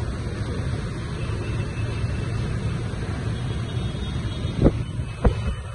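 Dust-storm wind buffeting the microphone in a steady low rumble, with two sharp knocks about half a second apart near the end.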